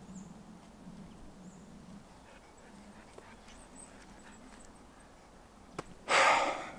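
Quiet outdoor ambience with a few faint clicks. About six seconds in comes a short, loud, noisy breath out close to the microphone.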